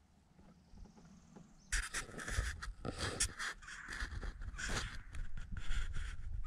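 A hooked fish being fought and reeled in beside a small boat: irregular splashing and rattling start suddenly about two seconds in and keep on.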